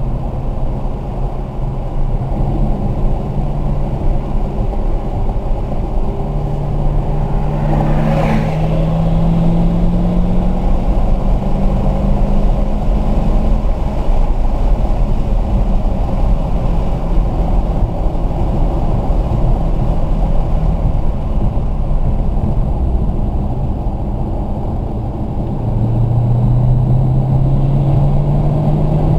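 Car engine heard from inside the cabin while lapping a track, with road and wind noise throughout. The engine note rises as it accelerates hard along a straight, eases off through the braking and turn, then climbs again near the end. A brief sharp sound comes about eight seconds in.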